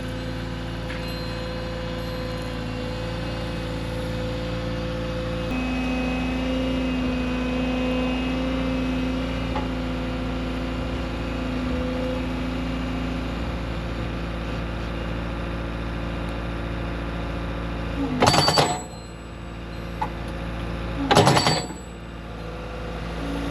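An engine running steadily, with two loud knocks about three seconds apart near the end.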